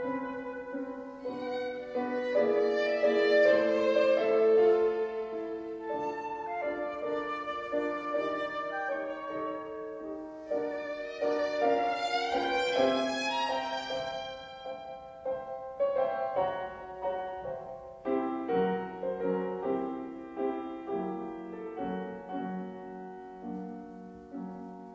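Classical chamber music played live: a violin melody with vibrato over piano. It is loudest in the first few seconds, then grows softer and lower and fades near the end.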